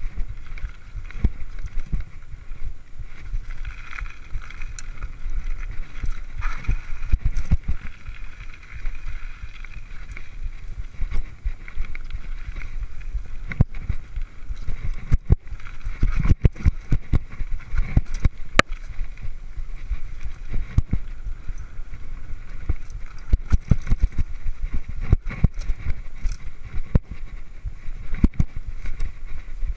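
Mountain bike riding fast over a dirt trail: wind rushing over the microphone and a low rumble, with frequent sharp knocks and rattles from the bike jolting over bumps. Near the end the tyres clatter over the slats of a wooden boardwalk.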